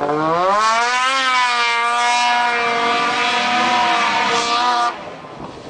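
Snowmobile engine through an MBRP aftermarket exhaust can, revving up over the first second and holding at high revs, then dropping away sharply about five seconds in.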